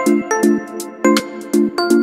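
Background music: short plucked notes with sharp attacks over a quick, steady beat.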